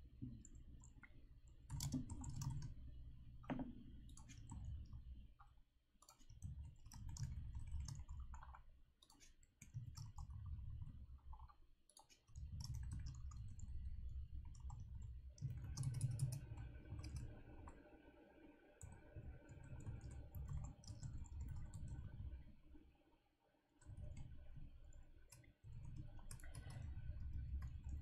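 Typing on a computer keyboard: scattered key clicks and short runs of keystrokes, with a low rumble coming and going underneath.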